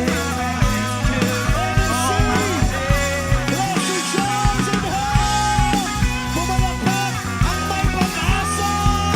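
Pop-rock worship song played by a band, with a steady drum beat under sustained melodic lines and no sung words.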